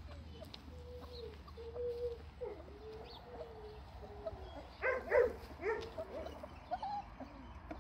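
Month-old Dalmatian puppies whimpering while suckling: a run of short, even-pitched whines, then a few louder squeals about five seconds in.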